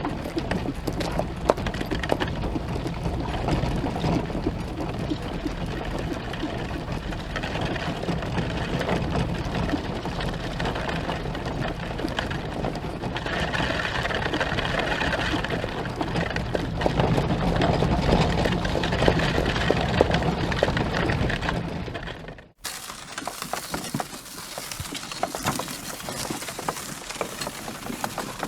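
Horse sound-effect recording: a dense, continuous clatter of knocks and crunching, with sharp clicks throughout. About 22 seconds in it cuts off suddenly and gives way to a quieter recording with scattered knocks.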